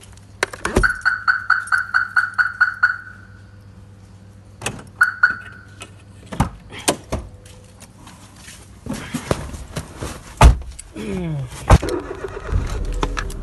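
A rapid run of about a dozen high electronic beeps, then two more, followed by car door clicks and a heavy door thunk. A car engine rumbles low near the end.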